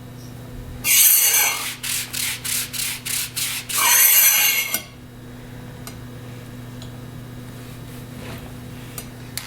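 Hand-made rasping scrapes, something rubbed back and forth like a saw or file: one long stroke, then about six quick short strokes, then another long stroke. A steady low hum runs underneath.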